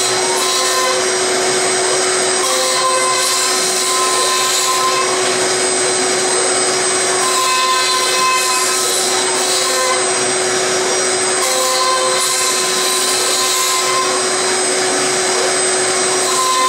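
Five-axis CNC milling machine's spindle running with an end mill cutting across a wooden log: a steady whine over the hiss of the cutter chewing the wood. A second, higher tone comes and goes every few seconds as the machine moves through its passes.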